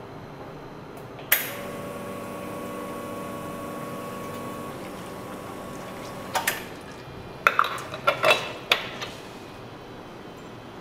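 Commercial espresso machine switching on with a click and running its pump and water with a steady hum and hiss for several seconds, cutting off with a click; then a quick series of metal clanks and clinks as the portafilter and parts are handled.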